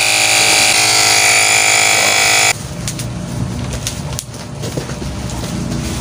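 A loud, steady vehicle horn made of several held notes sounds and cuts off suddenly about two and a half seconds in. After it, a motor vehicle engine keeps running.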